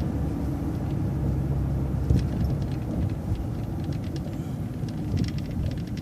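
City bus running in traffic, a steady low engine and road rumble heard from on board, with scattered light clicks and rattles.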